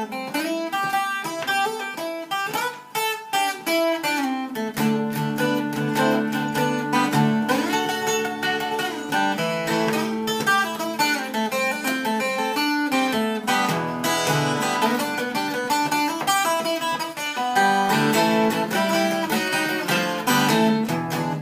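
Solo acoustic guitar playing an instrumental break in a blues song, picked and strummed, with lower notes joining about five seconds in.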